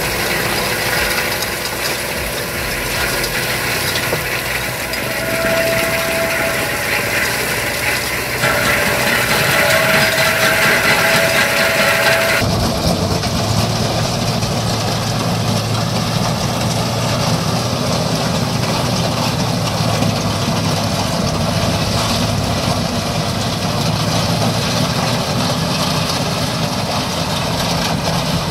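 Kubota M7172 KVT tractor running steadily under load while its rear-mounted Valentini Apache 2000 stone crusher grinds through stony soil. The sound changes abruptly twice, about eight and twelve seconds in.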